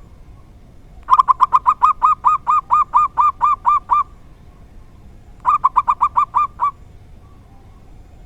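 Zebra dove (perkutut) singing: a fast run of short, evenly repeated cooing notes lasting about three seconds, then after a pause a shorter run of about a second.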